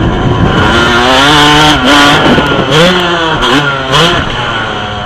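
Two-stroke Yamaha YZ250 dirt bike engine revving hard, its pitch dropping and climbing again a few times as the rider lets off and gets back on the throttle over jumps. A few sharp knocks come around the middle, and the sound fades out near the end.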